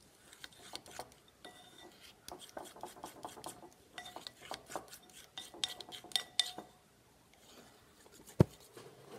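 A utensil stirring thick glue-and-paint slime mixture in a glass bowl, making repeated clinks and scrapes against the glass. There is a short lull about seven seconds in, then one sharp knock.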